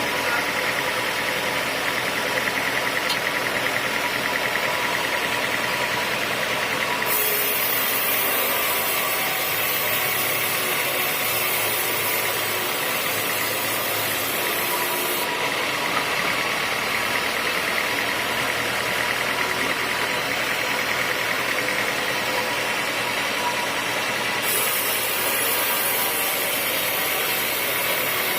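Sawmill machinery running steadily with an even motor drone; a high hiss joins it twice for several seconds.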